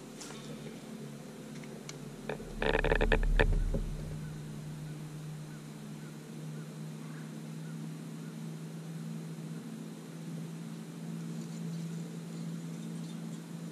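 Steady electric hum of a bow-mounted trolling motor holding a bass boat in shallow brush. About two and a half seconds in there is a loud, brief clattering burst with a deep thump, lasting about a second.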